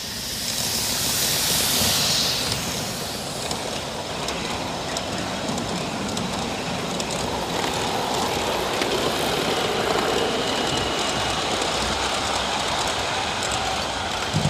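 Live-steam model locomotive on a 5-inch-gauge track. A loud steam hiss swells over the first two seconds and dies away, then the train runs on with a steady hiss and rumble and faint irregular clicks.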